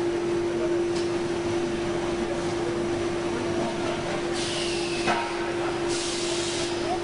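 Shoe-stitching machinery running with a steady hum, a couple of clicks, and two short hisses about four and six seconds in.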